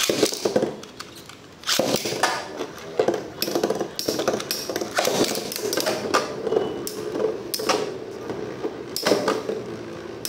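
Three metal Storm Pegasus Beyblade tops spinning in a plastic stadium: a steady whirr broken by many sharp clacks as they collide with each other and the stadium wall. There is a short lull about a second in, after which the clacking resumes.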